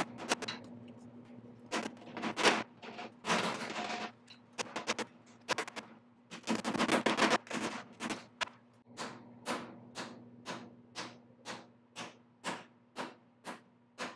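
Hammer striking sheet steel, forming a patch panel's flange over a wooden form, at about two blows a second. Two quicker flurries of blows come about three seconds in and again about seven seconds in.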